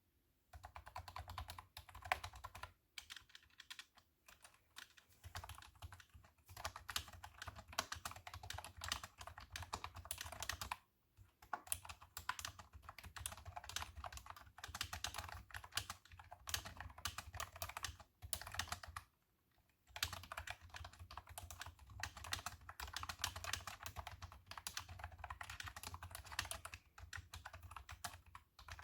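Steady typing on a cat-themed computer keyboard: dense runs of key clicks, with short pauses about 11 and 19 seconds in.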